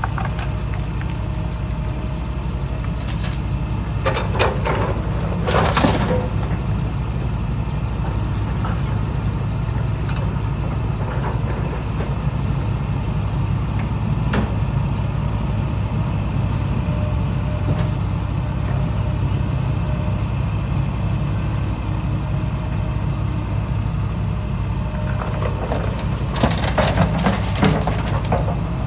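Diesel engine of heavy construction machinery running steadily with a low rumble. Brief bursts of louder noise come about four to six seconds in and again near the end.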